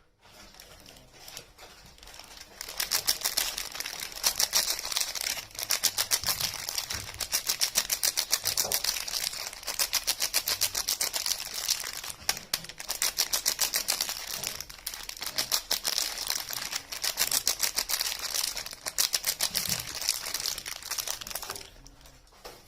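Soap packaging being unwrapped and handled: a fast, dense crackling and crinkling of wrapper and box, which starts about two and a half seconds in and stops shortly before the end.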